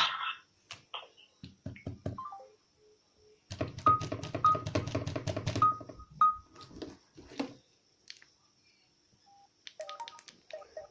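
A mobile phone's short electronic beeps and brief tone snippets, mixed with clicks and handling noise as the phone is worked between ringtones.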